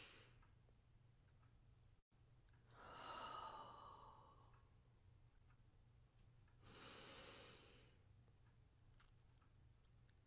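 A woman's slow, deep breaths taken as a guided breathing pause: one long breath about three seconds in and another about seven seconds in. A faint low hum runs underneath.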